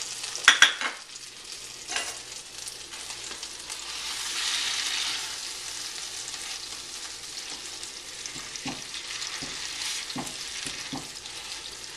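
Butter and cream cheese sizzling as they melt in a stainless steel skillet, stirred and pushed around with a spatula. A couple of sharp clacks about half a second in are the loudest sounds, with a few softer knocks of the spatula against the pan later.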